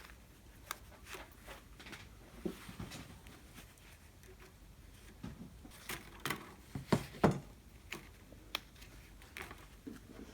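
Thin craft wire being handled and worked with pliers: scattered small clicks and taps, with a louder pair of knocks about seven seconds in.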